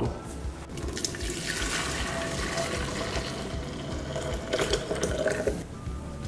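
Potato cooking water poured from a pressure cooker into a plastic blender jar, splashing and filling steadily. It stops shortly before the end.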